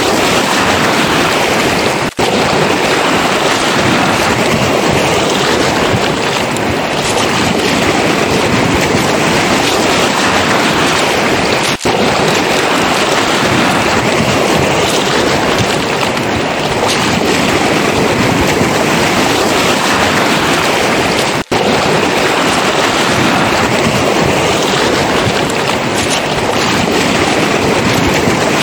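Sea surf washing onto a pebble shore: a loud, dense hiss that swells and eases slowly, with no separate footsteps standing out. The sound drops out for an instant three times, about ten seconds apart.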